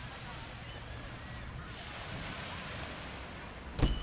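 Steady outdoor air rush with faint bird chirps. Near the end comes one sharp clack with a short ringing tone after it, as the glass front door is reached and opened.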